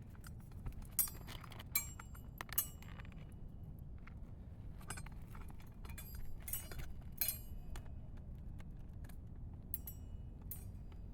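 Metallic clinks and taps of roofing nails being handled and set back into a shingle. Three sharp ones come under a second apart about a second in, then lighter scattered clinks follow, over a steady low rumble.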